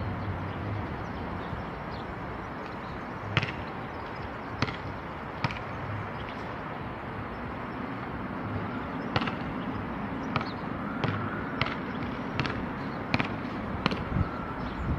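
Steady outdoor background noise with a series of sharp, irregularly spaced knocks, more frequent in the second half.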